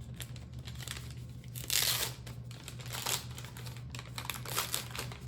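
Biodegradable chocolate bar wrapper crinkling and tearing as it is unwrapped by hand, in several rustling bursts, the loudest about two seconds in.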